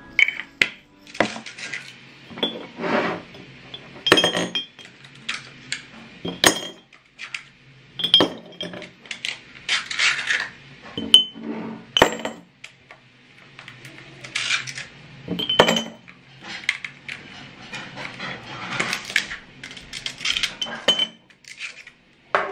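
Ice cubes dropped by hand into glass mason jars, a series of irregular clinks and knocks, some with a brief glassy ring.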